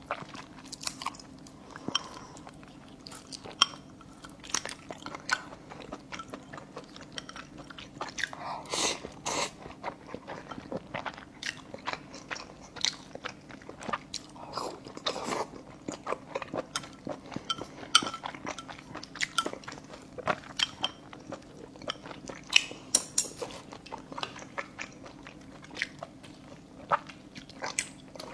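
Close-up eating sounds: chewing and biting braised fish innards with rice, with many short wet clicks and crunches throughout.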